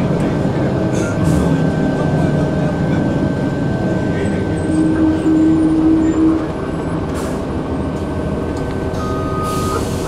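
Cabin sound of a 2002 Blue Bird CS transit bus under way: its Cummins ISC six-cylinder diesel and Allison B400R automatic transmission running with a steady drone. A tone rises out of the drone about four and a half seconds in, and the sound drops noticeably at about six and a half seconds, as if the driver eased off the throttle.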